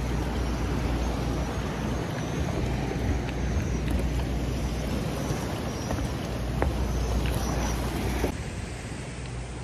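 Boat engine running steadily, heard from on deck, a constant low rumble with rushing noise over it; it turns suddenly quieter near the end.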